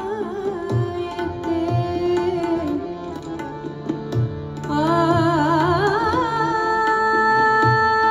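Ghazal accompaniment on tabla and harmonium: tabla strokes with deep bass thumps about once a second under the harmonium's held notes. A woman's ornamented singing comes back about halfway through and settles into long held notes.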